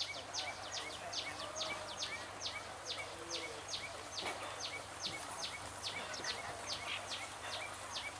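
A steady series of high chirps, about two to three a second, each one dropping sharply in pitch, over a faint outdoor hiss.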